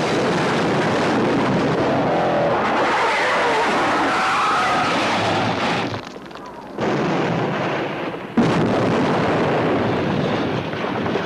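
Car-chase film soundtrack from a worn VHS copy: a V8 engine at full throttle and squealing tyres, a short lull about six seconds in, then a sudden loud explosion about eight seconds in with fire burning on after it.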